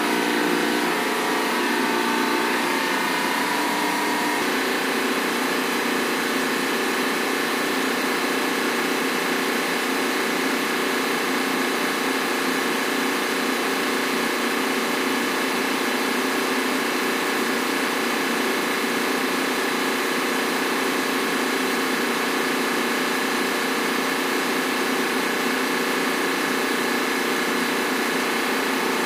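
Ship's engine-room machinery running steadily: a constant, even hum made of many held tones.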